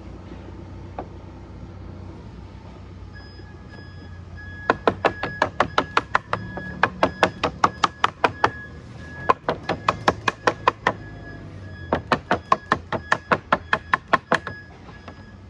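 A lead dresser beating code 4 sheet lead against a timber batten on a bench, setting a fold. It starts about a third of the way in as quick runs of sharp knocks, about three or four a second, broken by two short pauses.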